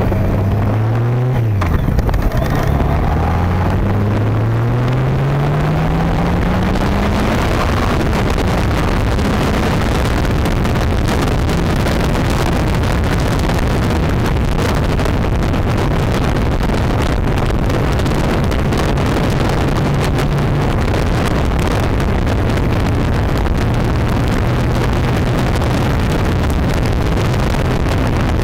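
Motorcycle engine pulling away, its pitch rising, with a gear change about two seconds in. It then settles to a steady cruise under heavy wind noise on the microphone.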